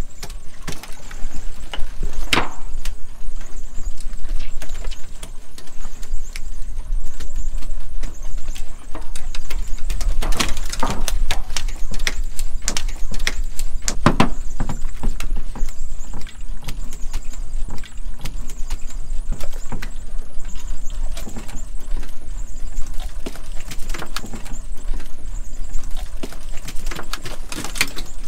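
Working noise on the deck of a small aluminium cod jig boat: a steady low rumble under frequent knocks, clicks and clatter as fish and gear are handled, with the loudest knocks about 2, 10 and 14 seconds in.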